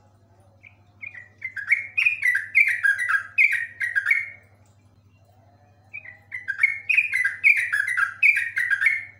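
Yellow-vented bulbul (trucuk) singing its rapid rolling song: two bouts of quick, bubbly notes, each note sliding down in pitch, about three or four a second. The first bout starts about a second in, and the second starts about six seconds in.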